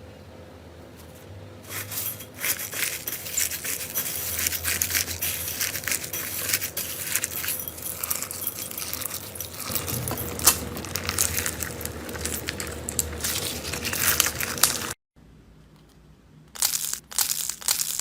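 Slime being squeezed and pressed by hand, giving a dense crackling crunch. It stops abruptly about fifteen seconds in, and a few short bursts of crackling follow near the end.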